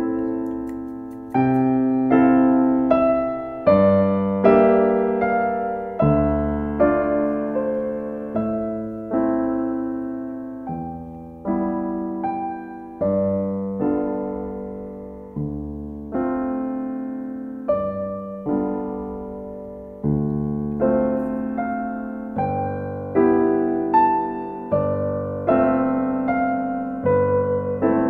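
Background piano music: a slow, gentle run of single piano notes and chords, each struck and left to fade.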